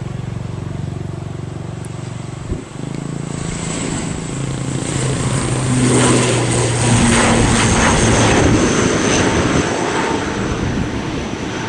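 Wings Air ATR 72-600's twin turboprop engines at takeoff power, with a steady low propeller drone. The sound grows louder as the aircraft rolls and lifts off, is loudest around six to nine seconds in, then eases as it climbs away.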